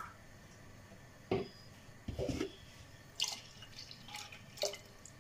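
Milk being poured into a pot of milk and melted butter, making a few short, separate splashing and dripping sounds.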